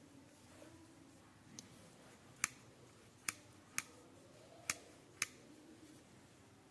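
Restored steel pliers being worked open and shut, their jaws clicking closed five times at uneven intervals, with one fainter click before.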